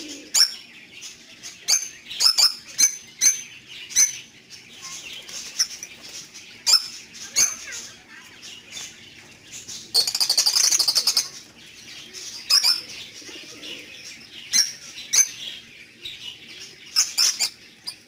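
A flock of caged lovebirds calling with short, sharp, shrill chirps, scattered irregularly, with a harsh buzzing burst of about a second roughly ten seconds in.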